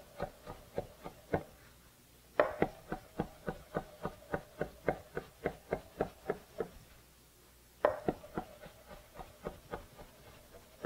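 Chef's knife chopping fresh cilantro on a plastic cutting board: quick, even strokes of about four to five a second, in three runs with short pauses between.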